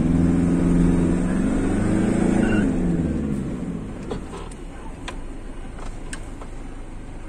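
Toyota Hilux 3.0 diesel engine pulling hard in low-range first gear with four-wheel drive engaged as the truck climbs a steep dirt slope, heard from inside the cab. The engine note climbs a little, then drops away after about three seconds, leaving a duller rumble with a few sharp knocks.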